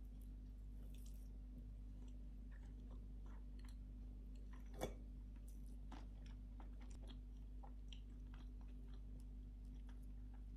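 Quiet eating sounds: chewing, and faint clicks of a knife and fork against a porcelain plate as pancakes are cut, with one sharper click about five seconds in. A low steady hum runs underneath.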